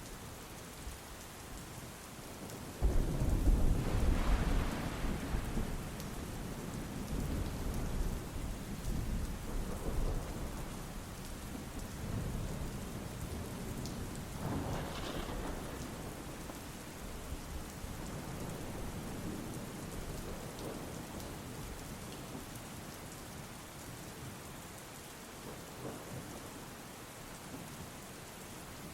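Steady rain falling, with a roll of thunder breaking in about three seconds in and rumbling on for several seconds, then a fainter peal of thunder around the middle.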